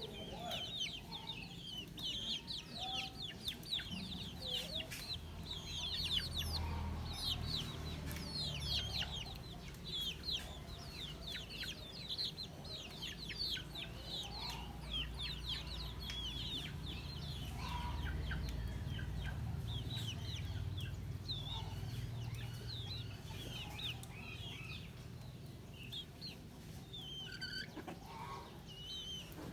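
Young poultry peeping: a dense, continuous stream of high, short, falling peeps, with an occasional lower call among them and a low rumble underneath.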